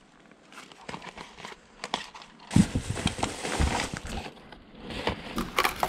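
Plastic lure packaging crinkling and clicking as the packs are handled and shuffled, with scattered light knocks that get busier about halfway through.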